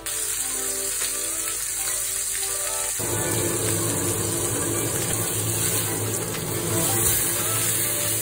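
A whole dorada (gilt-head bream) frying in hot oil in a pan: a steady sizzling hiss that starts suddenly as the fish is laid in.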